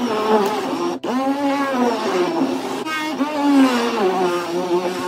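Background music: a song with a sung vocal line, long held notes that glide up and down in pitch.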